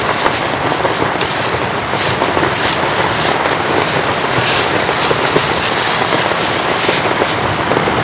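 Heavy rain falling in a dense, steady hiss, with many sharp drops crackling through it.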